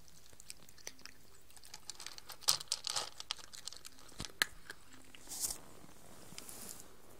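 Cat chewing its food: irregular crunches and clicks, thickest and loudest about two and a half to three seconds in, with a couple of brief rustles near the end.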